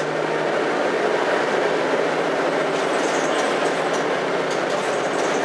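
Interior of a moving bus: steady engine and road noise, with light rattles from the bodywork about halfway through.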